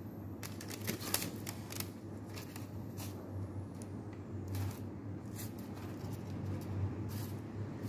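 Tongs clicking and scraping as baked breaded chicken strips are turned over on a parchment-lined baking tray, with the paper rustling, in scattered short bursts over a steady low hum.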